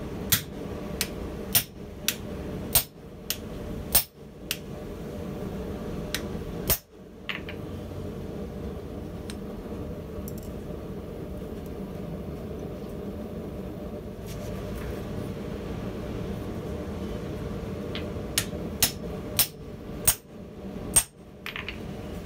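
Hand hammer striking a steel top die on hot steel, sharp metal-on-metal clanks as the bolt's end is forged into a Phillips-head screwdriver tip. About ten blows come in the first seven seconds, then a pause, then about five more near the end, over a steady low background noise.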